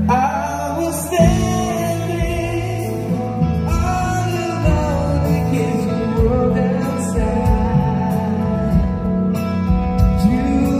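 Live rock band with a male lead singer, playing bass, electric guitar and drums. The sung melody starts at once, and the drums and bass come in with a beat about a second in.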